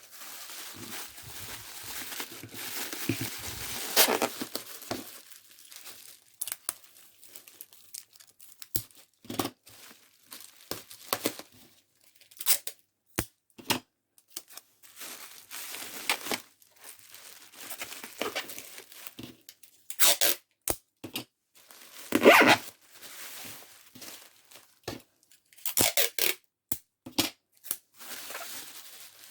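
Hands packing a parcel: wrapping material rustling and crinkling, with tearing noises and scattered short crackles. The loudest, a longer tearing burst, comes about three-quarters of the way in.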